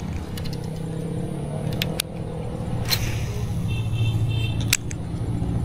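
A motor engine running with a steady low hum, with a few sharp clicks about two seconds in, about three seconds in and near the end.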